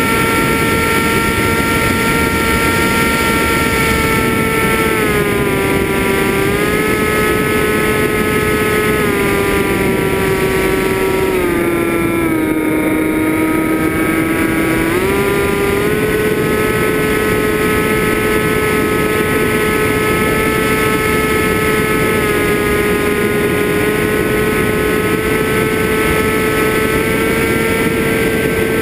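FPV drone's motors and propellers whining steadily over a constant rushing noise. The pitch steps down a few times from about five seconds in, is lowest around twelve to fourteen seconds, and climbs back near fifteen seconds as the throttle is eased and opened again.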